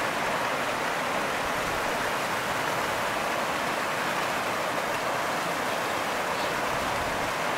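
The Virgin River rushing through a small rock chute and around boulders: a steady whitewater rush.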